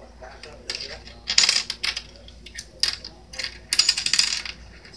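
Metal coins clinking and jingling in a toy slot machine's coin tray as a hand gathers them up: a series of short clinks, with the longest jingle about four seconds in.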